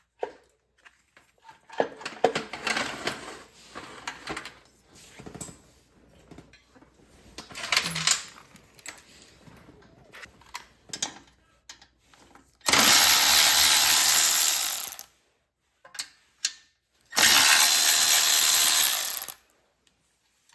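Metal tool clicks and handling clatter, then a small electric power tool runs twice, for about two seconds each time, backing out 8 mm bolts on a Predator 212 engine during teardown.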